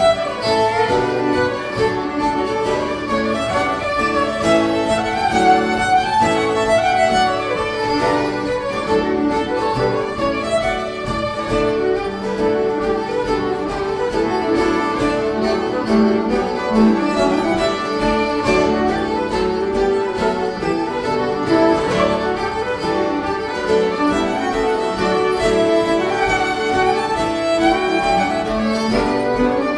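Two fiddles playing a lively fiddle tune together, backed by an acoustic guitar.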